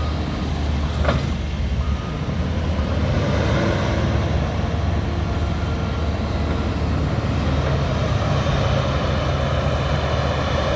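Heavy diesel engines of a JCB loading shovel and a John Deere 6250R tractor running steadily under load while pushing up and rolling grass on a silage clamp. There is a single sharp knock about a second in.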